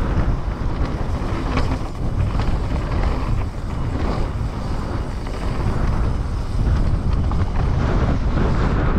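Wind rushing over an action camera's microphone and tyres rolling over dirt as a Trek Slash 9.9 enduro mountain bike descends at speed without braking, with a few brief knocks from bumps in the trail.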